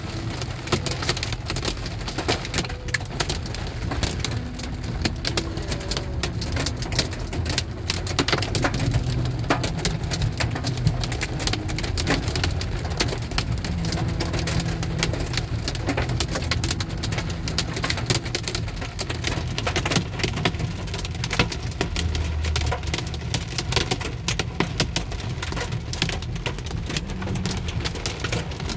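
Heavy storm precipitation pelting the car's roof and windshield, a dense, unbroken patter of sharp hits heard from inside the cabin, over the low rumble of the car moving.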